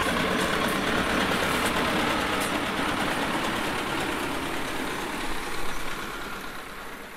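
Engine of a road-works machine running steadily with a dense, noisy rumble that fades away near the end.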